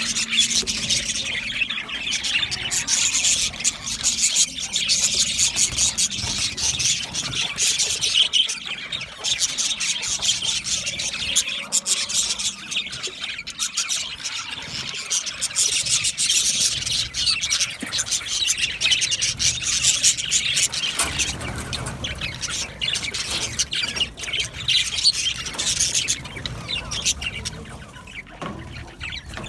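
Budgerigars chirping and warbling continuously: a dense, fast chatter of high chirps and squawks from several birds.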